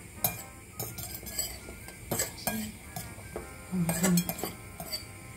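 A metal utensil clinks and scrapes against a ceramic salad bowl as the salad is stirred. The clicks come irregularly, several a second, and grow loudest about four seconds in.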